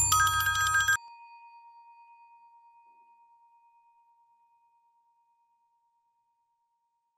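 A bell ding: a bright, rattling strike with a low buzz lasting about a second, then one clear tone ringing on and fading away over about three seconds.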